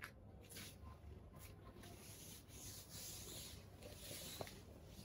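Faint rubbing of a hand over a mattress's fabric cover, feeling it to check whether the soaked mattress has dried.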